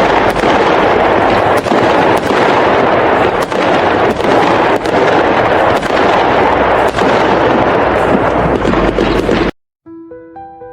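A loud, dense rush of noise with repeated sharp cracks or bangs, which cuts off abruptly near the end; soft piano notes start right after.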